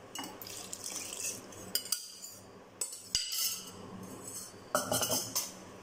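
Kitchen-utensil clinks and scrapes: a steel vessel knocking against a kadai as water is tipped into thick dal sambar, then a spatula stirring and scraping through the mixture. It comes as several short, separate clinks and scrapes, the loudest cluster near the end.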